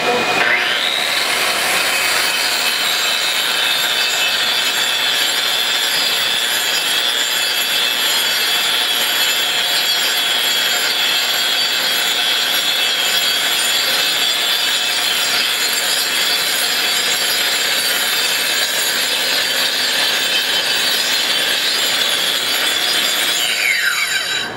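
Metabo angle grinder with a shrouded cup wheel grinding a coated concrete floor. Its whine rises as the motor spins up about a second in, holds steady over a rough grinding noise, then falls away as it spins down near the end.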